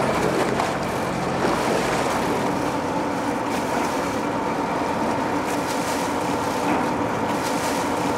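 Boat engines running steadily, a constant hum under the wash of churning water as a fishing boat comes alongside a tug.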